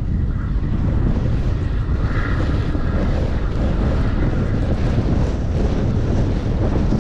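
Wind buffeting the microphone: a steady low rumble with a faint, brief whine about two seconds in.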